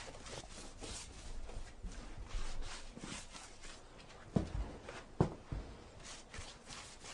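Paintbrush stroking paint onto a wall and baseboard: a soft, repeated swishing of bristles, with two dull knocks about four and five seconds in.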